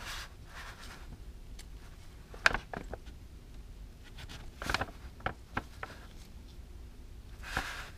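Faint handling noises of a small coil spring and the metal clutch filter cover of a Honda Gold Wing being picked up and fitted by hand: a few light, scattered clicks, mostly a couple of seconds in and again around the middle, with soft rustling between them.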